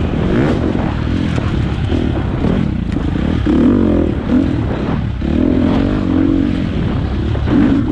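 Four-stroke dirt bike engine revving up and down repeatedly while riding, with occasional knocks and rattles.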